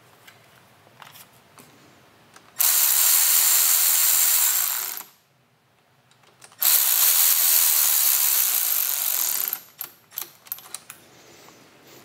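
Cordless electric ratchet running in two runs of about two and a half and three seconds, with a short pause between, snugging the brake lever perch clamp bolts on a motorcycle handlebar. Light clicks of the tool and parts being handled come before and after.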